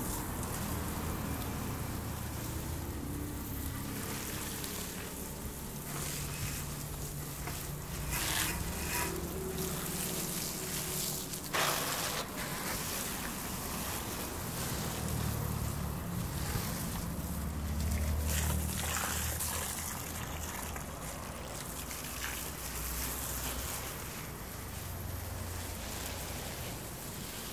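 Garden hose spraying water onto shrubs and plants, a steady hiss with a low rumble that swells and fades, and a sharp click a little before halfway.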